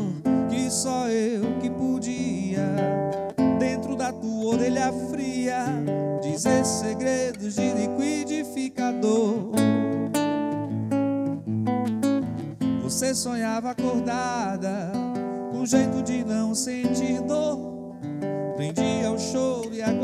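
Live MPB (Brazilian popular music) song on acoustic guitar, strummed and picked chords, with a man singing over it.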